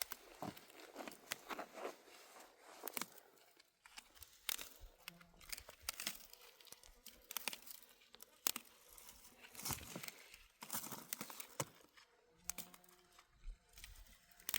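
Dry wild herb stems rustling and snapping as they are picked and handled by hand, in irregular crackles and short snaps.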